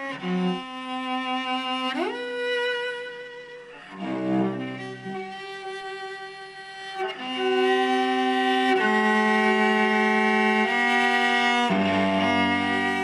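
Solo cello played with the bow: slow, long-held notes with sliding changes of pitch, rising once early on and falling once later. It plays louder from about halfway through, and a deep bass note joins near the end.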